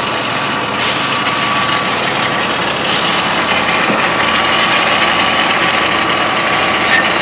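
Fire hose spraying water in a steady rush, over the steady running of a fire engine's pump.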